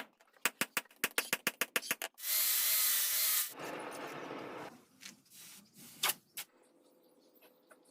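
Metalworking sounds: a quick run of about a dozen sharp strikes, then a power tool runs with a whine for about a second and a half, trailing off. Two more knocks follow near the end.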